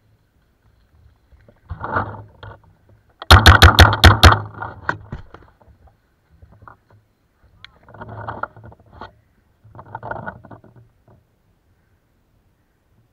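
A paintball marker firing a rapid string of about six shots in about a second, starting about three seconds in; this is the loudest sound. Shorter, quieter bursts of noise come before it and twice more later.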